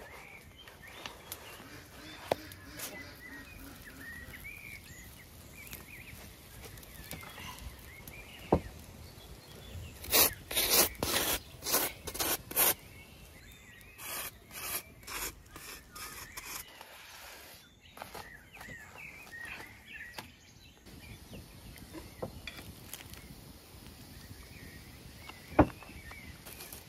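A knife scraping in a run of short strokes about ten seconds in, spreading butter over a hot flatbread on a sadzh griddle, with a few sharp knocks and faint birdsong in an outdoor background.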